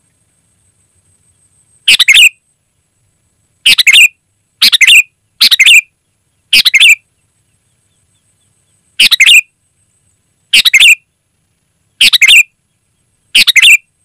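Sooty-headed bulbul calling: nine short, loud calls at uneven intervals, with silence between them.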